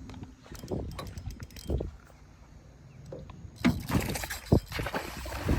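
Scattered knocks, clicks and rattles of fishing gear and handling against a small boat, growing denser and louder about halfway through.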